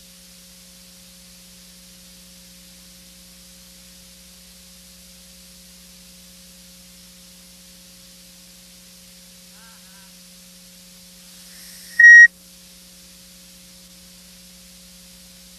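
Steady low electrical hum and hiss of a blank video signal, with one short, loud, high-pitched beep about twelve seconds in.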